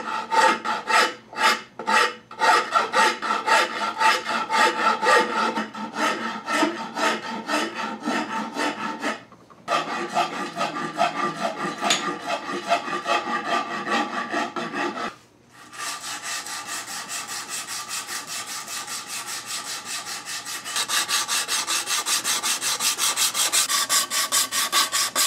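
A hand file rasping across the grip of a wooden rifle stock in quick back-and-forth strokes, with a brief pause about nine seconds in. After another pause about fifteen seconds in, a strip of sandpaper is drawn back and forth around the grip shoeshine-style in fast, even strokes that grow louder and brighter near the end.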